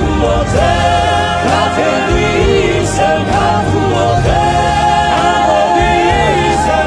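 A Georgian patriotic anthem: voices singing long, held notes over instrumental backing with a steady bass.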